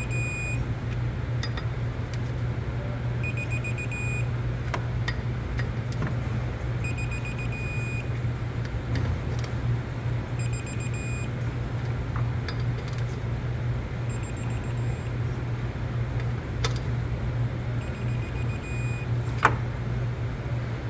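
Digital torque wrench beeping in short bursts of rapid high beeps, six times about three and a half seconds apart, as bolts on the supercharger bracket reach the set torque. Light clicks come in between, over a steady low hum.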